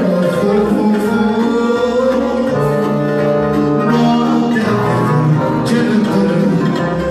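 Live Romanian lăutari music: a piano accordion playing a slow listening-style melody with a man singing over it into a microphone.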